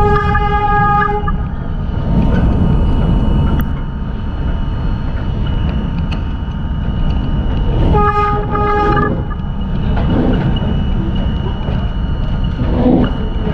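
Subway train horn sounding twice, each blast steady in pitch and about a second long: one ends about a second in, the other comes about eight seconds in. Underneath is the continuous rumble of trains running on elevated track.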